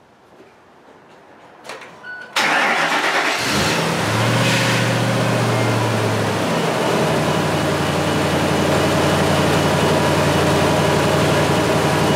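Ford F350 pickup engine being started: a few small clicks, then the starter cranks about two seconds in, the engine catches a second later, runs fast for a few seconds and settles to a steady idle. The starter cranks normally, showing a healthy starter.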